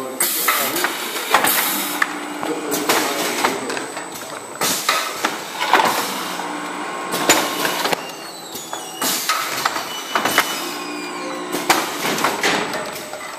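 Pneumatic shell-closing packing machine working, with irregular clicks and knocks from its moving parts as the filled tooth-powder shells are closed.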